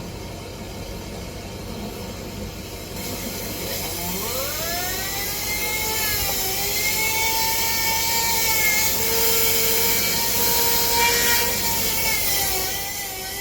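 Electric motor of a duct-cleaning tool spinning up with a rising whine about four seconds in, then running with a steady whine that wavers slightly in pitch over a rush of air, dropping away near the end.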